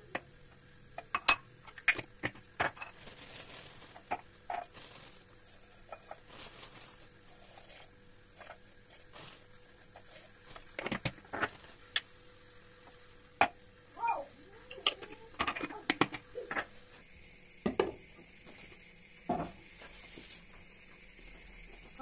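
Dried thyme rustling as it is poured from a bowl into a glass spice jar, with scattered clinks, taps and knocks of glass jars and plastic screw lids being handled, closed and set down on a stone countertop, busiest in the second half.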